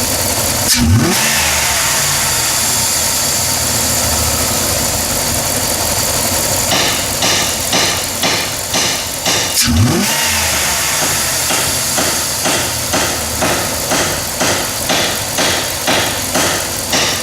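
1996 Dodge Ram Van 2500's engine running, its throttle snapped open twice, about a second in and again near the middle, with the revs rising sharply and dropping back each time. This is a snap-throttle check of the fuel pressure response, on an engine being chased for a random misfire. Through the second half a regular pulsing beats about twice a second over the engine sound.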